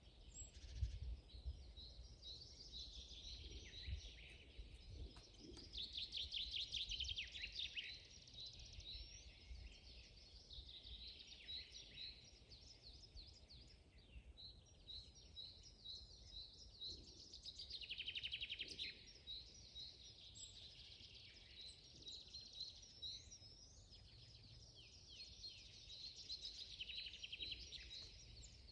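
Several small songbirds singing and calling together in a forest. Short chirps repeat evenly while fuller trilling songs come and go over them, all faint, over a low rumble.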